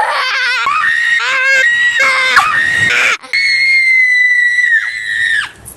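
A young boy screaming in a shrill, high-pitched voice: a string of wavering cries, a brief break about three seconds in, then one long held scream that drops in pitch just before it stops.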